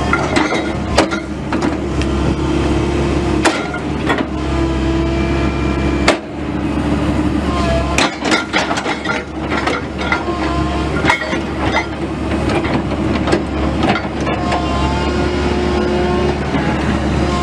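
Komatsu PC138US-8 excavator running: a steady engine drone with a whine that rises and falls, and repeated sharp metallic knocks and clanks from the working machine.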